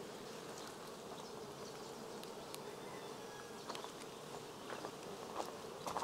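Honey bees buzzing in a steady hum over an open hive, with a few light clicks in the last couple of seconds.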